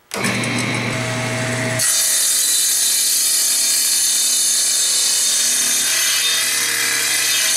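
Craftsman 10-inch table saw with an old dull blade switched on, its motor starting up and running. About two seconds in the blade begins cutting a wooden block fed through on a crosscut sled, a loud steady sawing noise over the motor's hum.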